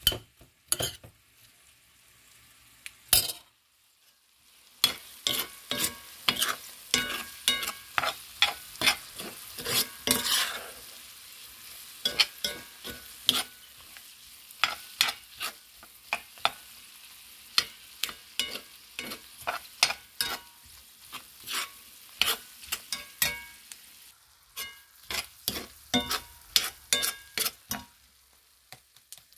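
Fresh-cut corn kernels frying in a pan with a steady sizzle, while a spatula stirs them, scraping and knocking against the pan in irregular clicks. The sizzle comes in about five seconds in, after a few separate knocks.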